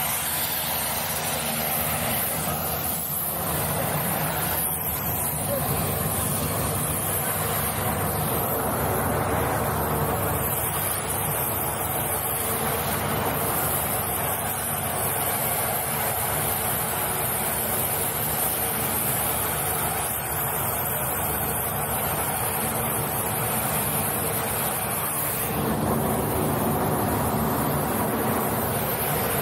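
Steady drone of running aircraft engines on an airfield, with people talking in the background.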